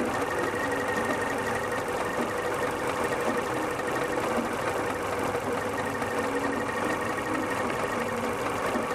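Engine idling steadily with a steady high whine over it. The engine has a vacuum leak, which the mechanic traces to a fuel injector seal.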